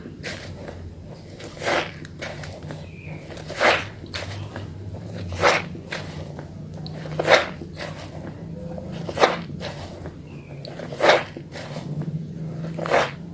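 A small bar of Holly soap being lathered wet, with a short, sharp lathering stroke about every two seconds and faint rubbing between the strokes.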